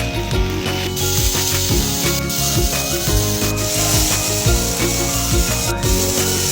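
Background music with a steady beat. A steady high hiss comes in about a second in.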